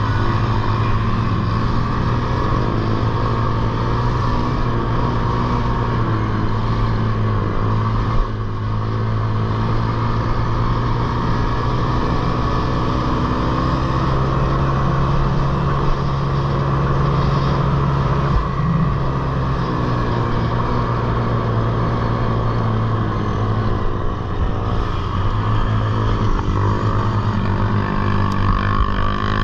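Small youth racing ATV engines running continuously, their pitch wavering a little as the throttle changes.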